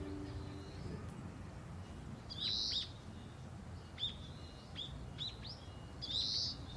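Small birds chirping: a scattering of short, high, down-sweeping calls, the loudest at about two and a half seconds and near the end.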